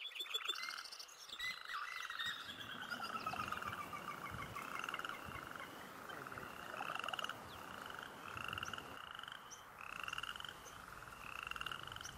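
A chorus of frogs calling: pulsed, trilled calls repeat about once a second, with higher, shorter rising trills between them. A longer falling trill runs through the first few seconds.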